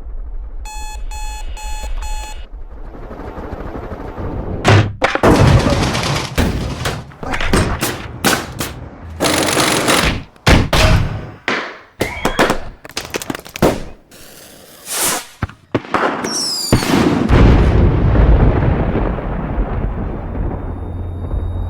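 Sound-design collage: a digital alarm clock beeps four times in quick succession, then a low rumble runs under a rapid series of abruptly cut, noisy bursts and impacts, ending in a loud, sustained low rumble.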